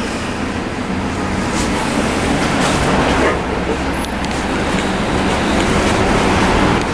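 A London double-decker bus's diesel engine running steadily at the stop, a continuous low drone, with street traffic around it.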